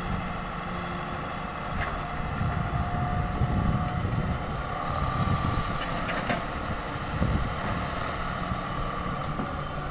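Daewoo Solar 130 wheeled excavator's diesel engine running under load while the machine digs and lifts a bucket of wet sand. A thin whine runs over the engine and steps up in pitch about halfway through, with a few light knocks.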